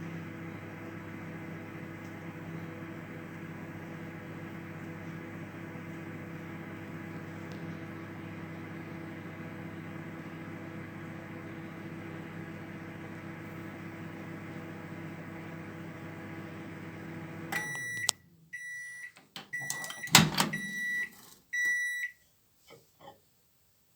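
Sharp R-242WW microwave oven running with a steady hum, which cuts off about three-quarters of the way through as the cycle ends. Its end-of-cycle signal then beeps about five times at one high pitch, with a sharp click among the beeps.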